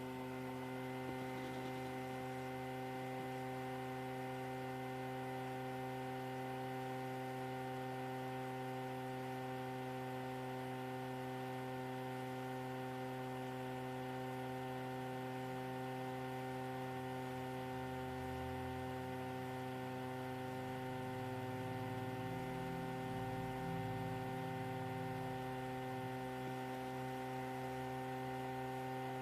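Steady electrical hum made of several constant tones at once. A low rumble swells under it for several seconds past the middle.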